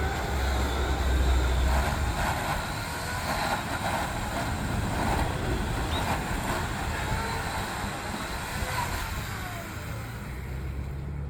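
An engine runs steadily, with a deep hum strongest in the first two seconds and faint rising and falling tones over it.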